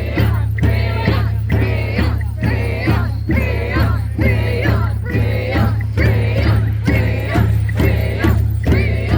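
Music with a steady beat of about two strokes a second, jingling, and singing.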